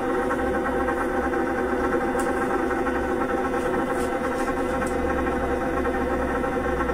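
Vibration therapy apparatus running under a lying patient's back, its motor giving a steady, many-toned mechanical hum, with a few faint ticks.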